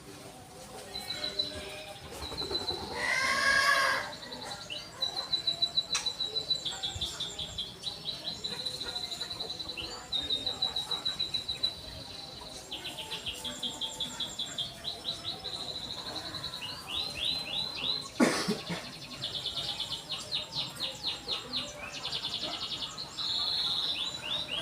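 Domestic canary singing: long phrases of rapid, high-pitched trills and repeated chirping notes, separated by short pauses. About three seconds in, a brief louder sound with a bending pitch cuts across the song.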